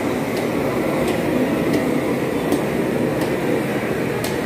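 Steady background din of a busy covered market, an even wash of noise without clear voices, with faint light clicks about every three-quarters of a second.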